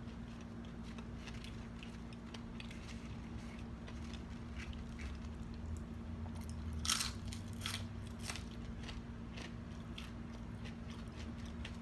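Close-up chewing and biting of homemade french fries, with many small mouth clicks and a louder crunchy bite about seven seconds in, over a steady low hum.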